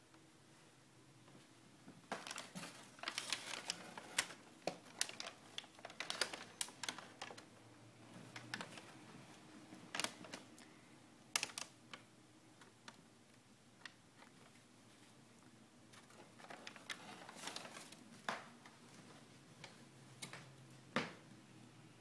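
Crumpled packing paper and cardboard crackling and clicking in irregular bursts as a cat shifts about inside a cardboard box, with quiet gaps between.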